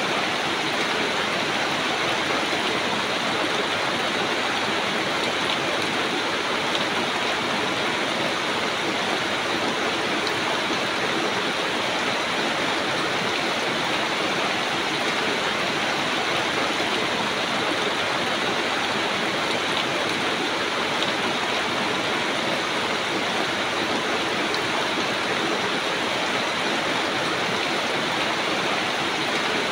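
Rain falling steadily on broad banana leaves, an even, unbroken hiss of drops.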